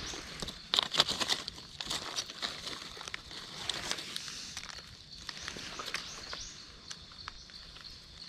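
Dry leaf litter and twigs crunching and crackling in irregular clusters as someone moves over the forest floor, loudest about a second in, over a steady high background hiss.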